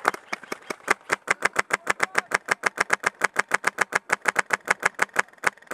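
Airsoft rifle firing a long full-auto burst at close range, an even stream of sharp shots at about ten a second.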